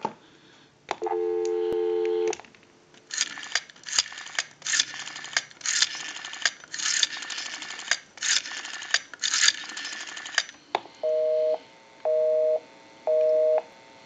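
Telephone line audio: a short stretch of dial tone, then a Western Electric rotary dial pulsing out a number in about seven bursts of rapid clicks, one burst per digit. In the last few seconds a busy signal beeps about once a second, because the number dialled is the same line's own.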